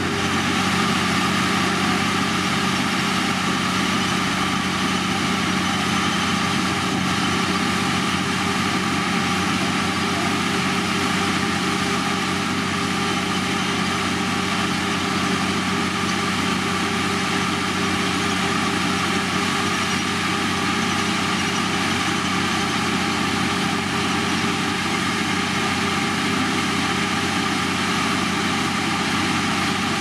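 Diesel engine of heavy road-construction machinery running steadily at a constant speed, an even drone that does not rise or fall.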